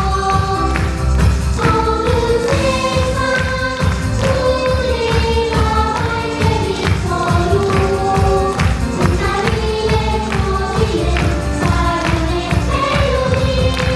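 Church worship team singing a praise song over accompaniment with a steady beat.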